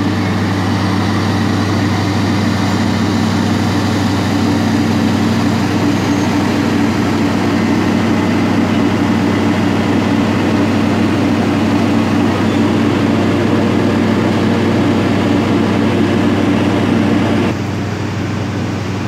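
Diesel passenger train running past slowly: a steady low engine drone with a second, higher hum above it. The sound drops suddenly in level near the end.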